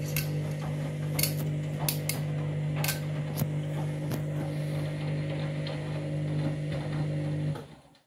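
Front-loading washing machine drum turning through the end of its main wash: a steady motor hum with clothes tumbling in the water and several sharp clicks of items knocking the drum. The hum and tumbling cut off suddenly near the end as the drum stops at the end of the main wash.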